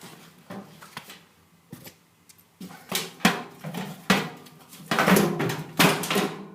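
Irregular metal knocks, clunks and rattles of a variable speed AC motor being worked by hand to separate it. A few knocks come first, then after a short pause they grow denser and louder.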